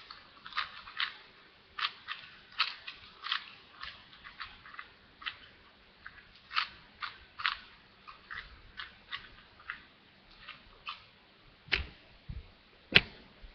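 Plastic 4x4 Rubik's cube being scrambled: its layers are turned by hand, giving irregular sharp clicks and clacks, a few a second. Two louder knocks come near the end.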